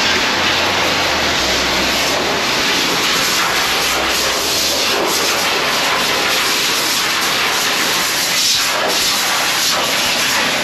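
Vactor truck's vacuum hose and high-pressure water-jetting equipment running in a culvert: a loud, steady rushing hiss of suction and jetted water.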